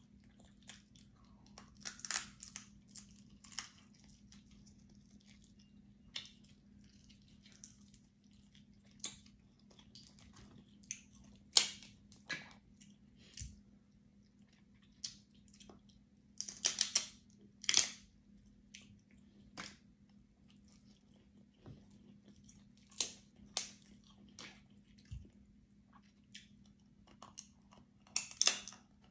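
Close-up chewing of crab meat, with irregular crunches and clicks as crab shell is picked apart by hand. A faint steady hum runs underneath.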